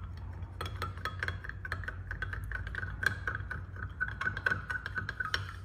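Metal stirrer clinking rapidly and irregularly against a glass measuring cup while stirring flake into liquid plastisol, the glass ringing faintly with each knock.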